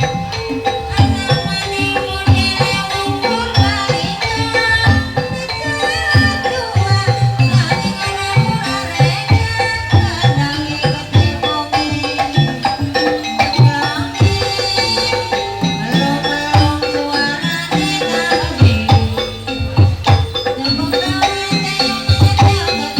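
Kuda lumping accompaniment music: hand drums beating busily under a pitched melody with held tones.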